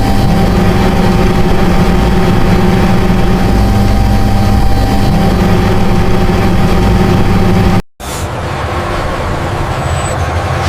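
Steady machinery hum and rumble with a low drone and a thin steady tone over it; it cuts off abruptly about eight seconds in and resumes as a quieter rumble.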